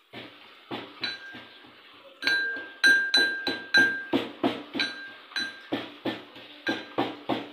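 Pestle pounding in a metal mortar, each strike ringing with the same bright metallic tone. A few scattered strikes come first, then steady pounding at about three strikes a second from about two seconds in.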